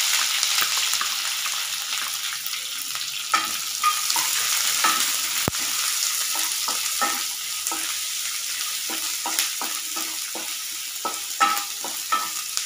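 Chopped onions sizzling in hot tempering oil in a non-stick kadai, stirred with a wooden spatula that gives repeated light knocks and scrapes against the pan, more often from a few seconds in.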